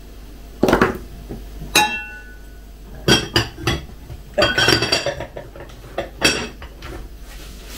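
Dishes and cutlery clinking and knocking as they are handled, in a series of separate strokes; one clink about two seconds in rings briefly.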